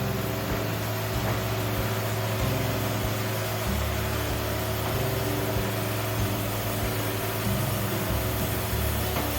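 Wood-Mizer LT70 sawmill running steadily with a constant low machine hum.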